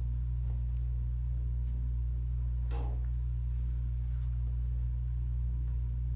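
Steady low hum over quiet room tone, with one short faint sound about three seconds in.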